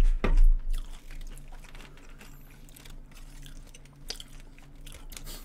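Close-miked chewing and crunching of fast food, loudest in the first half-second, then softer chewing with a few sharp crunches again about four seconds in.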